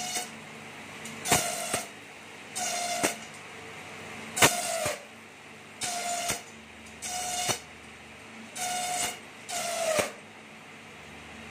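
A satay-skewer slicer machine being fed bamboo pieces one after another. Each pass gives a short, loud whining tone lasting about half a second, framed by a click, and the passes come about every one and a half seconds. A steady low hum runs underneath.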